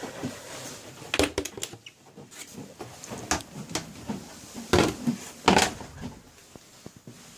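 Miele W941 washing machine giving a series of irregular knocks and clunks, loudest about a second in and a pair about five seconds in, with no steady motor or spin hum.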